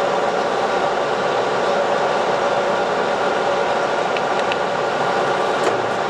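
Lodge & Shipley heavy-duty engine lathe running with its spindle in reverse under its 10 HP main motor: a steady mechanical whine from the headstock gearing, several tones over a dense running noise. A few faint ticks come near the end.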